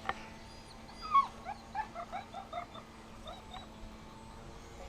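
A string of about a dozen short, high, whimpering animal calls, each rising and falling in pitch, about three a second. The loudest comes about a second in, and they die away after about three and a half seconds.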